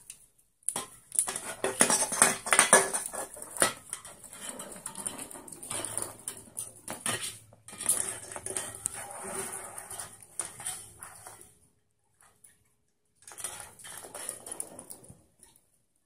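Aluminium drink can pushed and rolled across a wooden floor by a sun conure: repeated tinny clinks and knocks, stopping for about two seconds near the end and then starting again.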